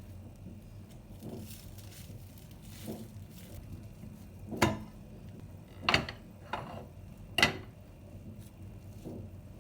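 Four sharp clinks and knocks of dishes or utensils being handled in a kitchen, spread over the second half, over a faint low hum.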